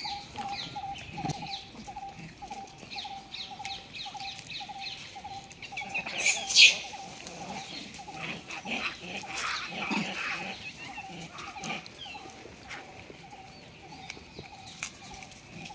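Rhesus macaques eating cucumber pieces, with rustling and crackling as they handle the food. Behind them a bird repeats a steady low note about two or three times a second. A short, harsh, high-pitched sound about six and a half seconds in is the loudest moment.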